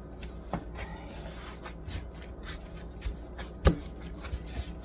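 Hands folding and pressing buttermilk biscuit dough on a floured counter: soft rubbing and light taps, with one sharp knock a little under four seconds in.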